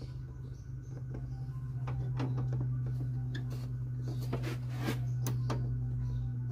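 Light clicks and metallic taps as a car air-conditioning refrigerant quick coupler is turned and fitted onto the A/C service port, over a steady low hum. The clicks come irregularly, several in the last few seconds.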